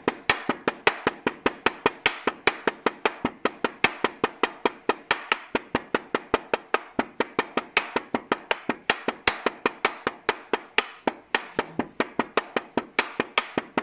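Stone pestle pounding herbs in a stone mortar: rapid, even strikes at about five a second, each a sharp knock.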